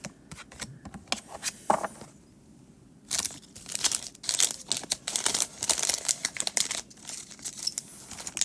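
Foil wrapper of a Pokémon card booster pack crinkling and tearing as it is handled and ripped open, with scattered light clicks first, then a dense crackle in the middle that thins out near the end.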